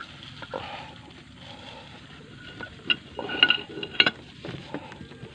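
Sharp metallic clinks of hand tools and engine parts being handled, a few scattered clicks with a brief cluster of short ringing clinks about three and a half seconds in.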